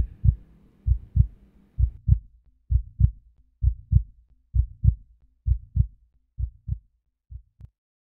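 Heartbeat sound effect: paired low lub-dub thumps, a little under one pair a second, growing fainter near the end and stopping.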